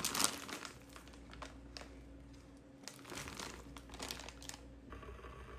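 Crinkling and rustling handling noise in a series of short, uneven bursts, with a faint steady hum coming in near the end.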